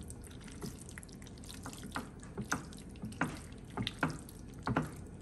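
Tongs tossing sauce-coated fettuccine alfredo with shrimp and crabmeat in a baking dish: a string of short, irregular wet smacks and squelches.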